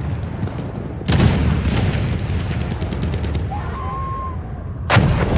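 Battlefield sound effect: gunshots cracking out at about one second, again shortly after, and near the end, over a steady low rumble of distant firing.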